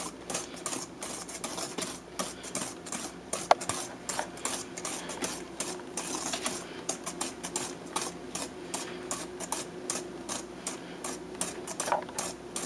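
A wire whisk beating egg yolks and sugar in a stainless steel mixing bowl, its wires scraping and clicking against the bowl in a fast, even rhythm of several strokes a second. One louder clink comes about three and a half seconds in.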